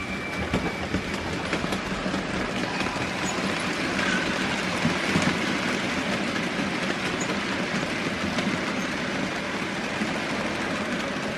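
Model trains running on a layout: a steady rattle and clatter of small wheels on the track with the whirr of the motors, as a rake of tank wagons runs past close by.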